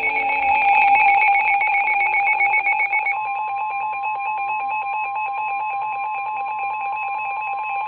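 NOAA weather radio receivers sounding their alert: several steady electronic tones pulsing rapidly together, with a high beep that stops about three seconds in, when the steady 1050 Hz warning alarm tone takes over. The alarm announces an incoming tornado warning broadcast.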